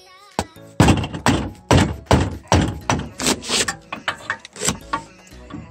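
Orange mallet struck about ten times in an even rhythm, roughly two blows a second, tapping a front drive shaft (CV axle) into place.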